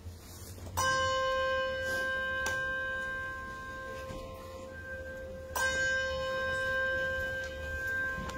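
Two chime notes at the same pitch, struck about a second in and again near six seconds, each ringing on for several seconds and slowly fading.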